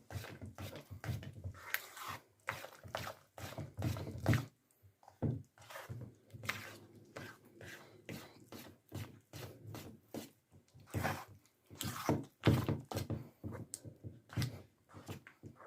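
Glue slime being stirred and kneaded as boric acid solution sets it: irregular soft squelches and dull knocks, several a second, at an uneven pace.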